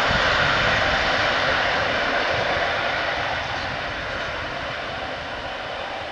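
Passenger train rolling away along the track after passing the platform, its wheel and rail noise a steady rumble that fades gradually.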